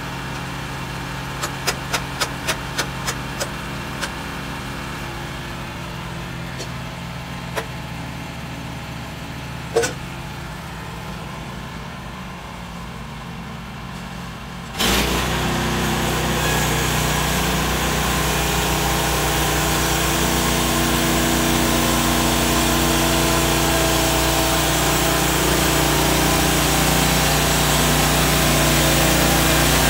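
Woodland Mills HM130 portable bandsaw mill's small gas engine idling, with a quick run of sharp clicks early on and a couple of single knocks. About halfway through, the engine is throttled up sharply and runs loud and steady with the band blade spinning, sawing through softwood.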